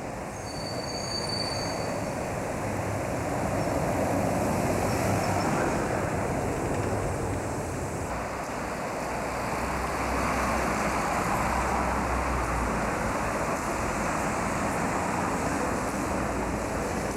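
Trolleybuses and street traffic on a cobbled street: a steady rush of tyres and running gear that swells as a bus goes by about four seconds in and again from about ten seconds. A brief high whistle sounds near the start.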